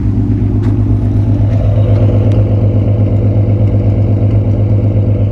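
2008 Ford Mustang's 4.0-litre V6 with long-tube headers idling steadily, heard at the dual tailpipes: a loud, even exhaust pulse.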